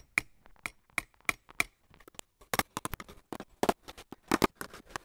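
Hammer driving small fencing pins through welded wire mesh into a wooden gate frame: a string of sharp, irregular knocks, coming closer together in the second half.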